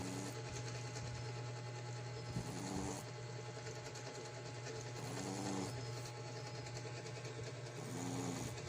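A small short-nosed dog, a Shih Tzu–Pekingese cross, snoring in its sleep: four rough snores, one about every three seconds, over a steady low hum.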